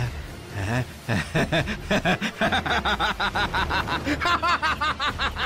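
A man laughing: a long run of rapid, evenly repeated "ha-ha" pulses that starts about a second in.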